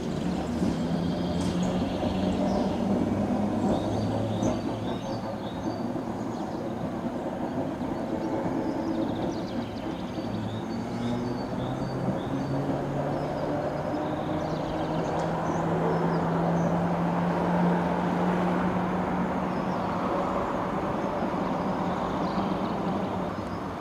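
Historic tram running on street track, a low steady hum that rises a little in pitch midway, with birds chirping.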